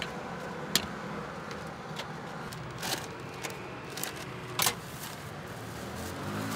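Metal tongs clicking and paper bags rustling a few times, over a steady low rumble.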